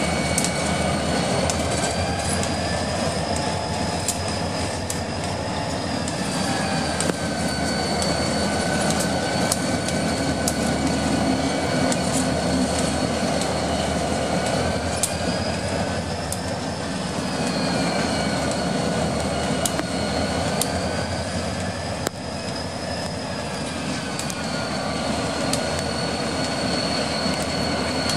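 EMD SD40-2 diesel locomotives rolling slowly past with a steady engine rumble. High, thin wheel squeal slowly wavers up and down in pitch throughout, with scattered clicks from the wheels over the rail.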